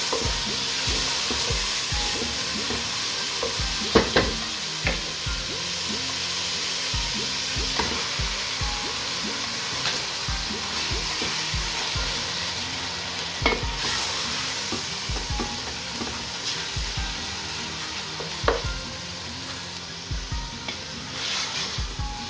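Onions and then chicken mince sizzling as they fry in a stainless steel pot while a spoon stirs them. The spoon knocks against the pot now and then, and there is a short run of knocks near the end. The sizzle eases slightly toward the end.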